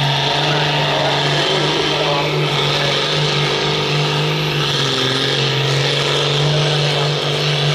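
John Deere 6920 tractor's six-cylinder diesel engine running hard under full load as it drags a weight-transfer sled, a loud steady drone.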